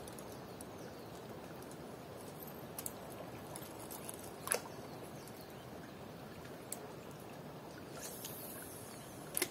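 Lake water lapping at the shore in a steady wash, with one sharp click about halfway through and a few fainter ticks.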